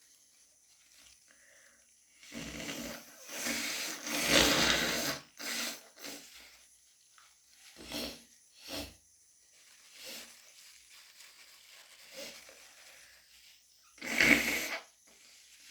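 A person with a head cold blowing a congested, snotty nose: one long wet blow starting about two seconds in and lasting about three seconds, then several short sniffles, and another short hard blow near the end.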